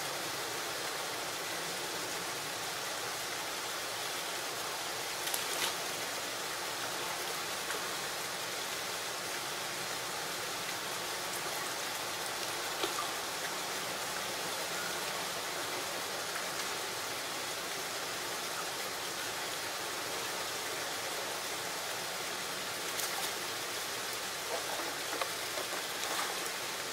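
Steady rushing hiss of running water, with a few faint clicks now and then.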